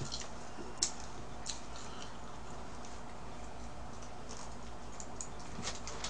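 A few scattered soft clicks and crackles over a low steady hum: the small sounds of eating at a table, chewing and handling the paper fries wrapper.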